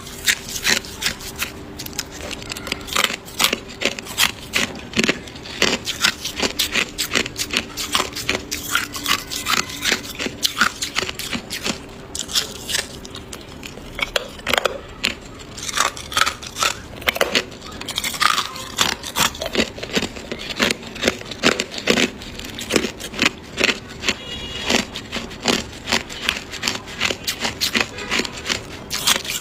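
Hard clear ice being bitten and chewed: an irregular run of sharp cracks and crunches, several a second.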